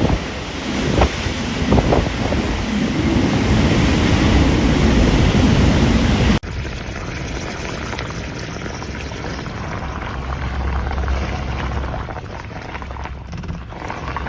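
Typhoon wind blowing hard with rain, buffeting the microphone. About six seconds in it cuts abruptly to a quieter stretch of wind noise.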